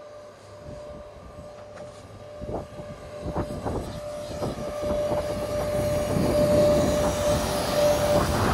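VR Sr1 electric locomotive hauling a freight train, approaching and passing close by, growing steadily louder. A steady hum runs throughout, and wheel clacks join from about two and a half seconds in as the locomotive draws near.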